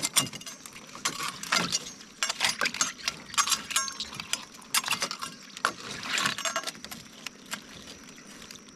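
Irregular clicking, clinking and scraping, at times several clicks a second, from live blue crabs' shells and claws knocking and scrabbling together.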